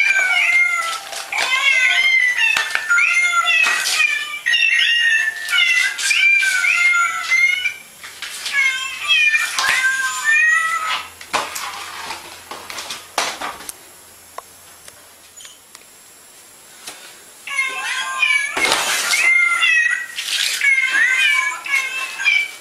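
Orange tabby house cat meowing with a paper card held in its mouth: a long run of short, rising-and-falling calls in quick succession, breaking off for several seconds midway with a few knocks and resuming near the end.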